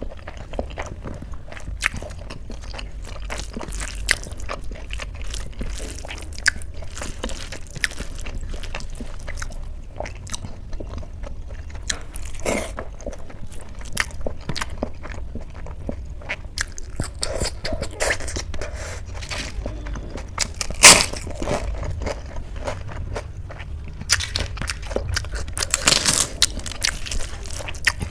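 A person eating close to the microphone: chewing and biting food, with irregular wet mouth clicks and crunches. One sharp loud click comes about three quarters of the way through.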